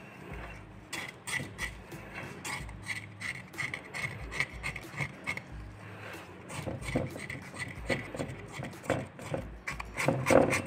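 Porcelain pestle grinding zinc oxide and sulfur powder in a porcelain mortar: a gritty scraping at about three strokes a second as the powders are worked until homogeneous, louder near the end.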